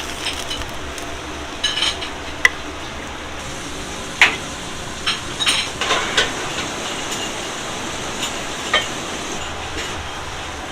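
Egg frying in a hot pan, a steady sizzle, with a utensil clinking against the pan several times.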